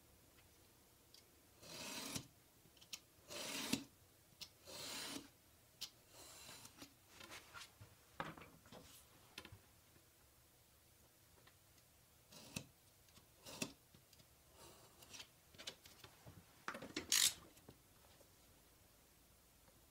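Utility knife blade drawn through a sheet of leather along a steel ruler, in a series of scraping cuts about half a second to a second each, with a few small clicks between strokes.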